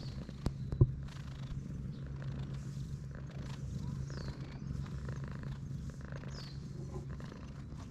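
Domestic cat purring steadily while being stroked on the head, a sign that it is content. Two short knocks come in the first second.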